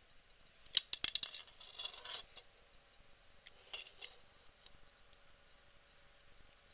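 Handling noise of a glass jar: a quick run of sharp clicks and scrapes about a second in, and a shorter scrape near four seconds.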